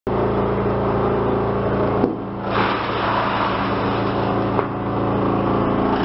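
Pezzolato PTH/S 480/660 drum wood chipper, driven by a 75 kW electric motor, running with a steady hum. About two seconds in, after a short knock, the sound turns to a louder, rough chipping noise as wooden boards and offcuts are fed through the drum.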